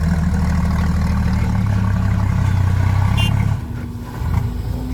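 Heavy diesel engine running loud and steady through its exhaust, which is called really fierce. The sound drops off sharply about three and a half seconds in.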